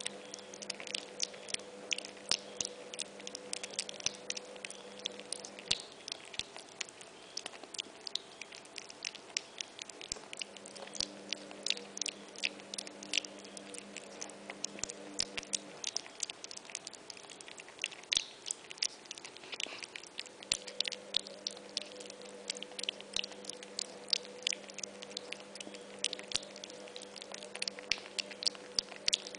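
A micro pig piglet chewing and crunching its first solid food: a dense, irregular run of small sharp crunches and clicks, with a faint steady hum behind it that drops out for a few seconds twice.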